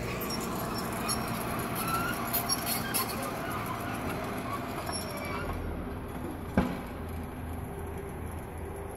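1979 International Dresser TD8G crawler dozer's diesel engine and tracks running steadily out of sight, with scattered crackles in the first few seconds and one sharp snap about two-thirds of the way through.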